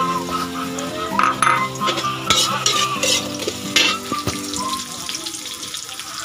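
Chopped red onions and garlic sizzling in hot oil in a wok as they are sautéed, with a metal spatula scraping and knocking against the pan several times.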